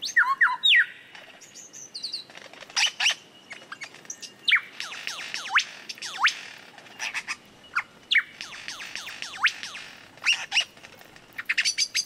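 Superb lyrebird in display, mimicking sci-fi laser-blaster sounds: quick, steeply falling whistles, some single and some in rapid clusters, mixed with sharp clicks.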